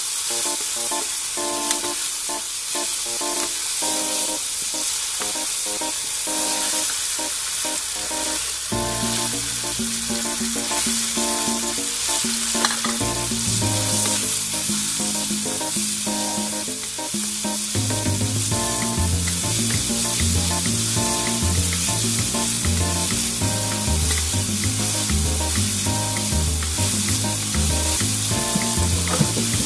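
Red onion, garlic and tomato sizzling in hot oil in a metal wok, stirred with a wooden spatula that now and then scrapes the pan. Instrumental background music plays under it, with a bass line coming in about nine seconds in and a steady beat from about eighteen seconds.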